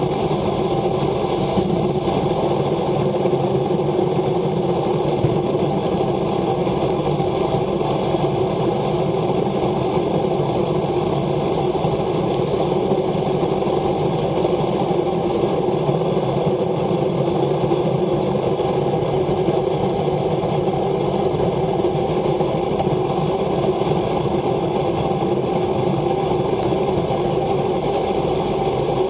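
Steady rush of wind and wet road noise picked up by a bicycle-mounted action camera during a fast descent at about 50 km/h on a rain-soaked road.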